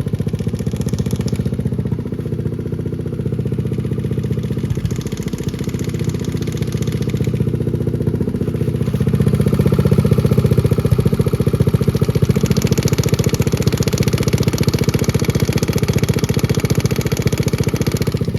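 Motorcycle engine running at idle, with a rattle heard over it, the kind that shows up when the bike is leaned to the right. It gets somewhat louder about halfway through.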